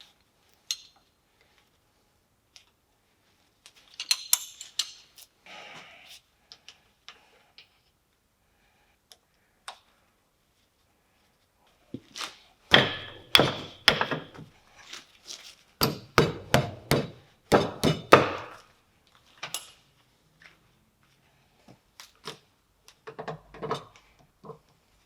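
Hand tools and metal machine parts knocking and clanking in irregular clusters, busiest in the middle, during teardown of a MAHO MH 500 W milling machine.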